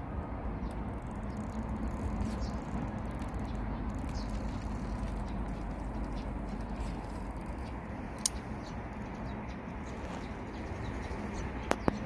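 Outdoor ambience: a steady low rush of air with faint, short bird chirps here and there. A sharp click comes about eight seconds in and two more just before the end.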